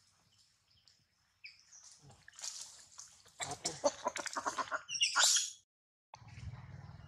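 Baby macaque monkey giving a short, high-pitched cry about five seconds in, preceded by a rapid run of clicking and rustling.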